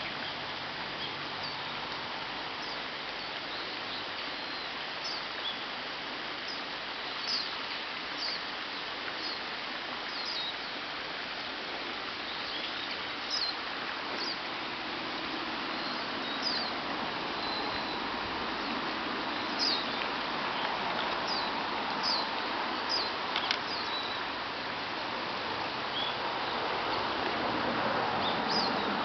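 Japanese white-eyes giving many short, thin, high contact calls, scattered singly and in quick clusters, over a steady noisy background that swells slightly near the end.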